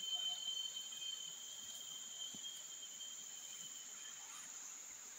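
Steady chorus of forest insects: a continuous high-pitched buzz, with a second, lower steady tone that fades out about four seconds in.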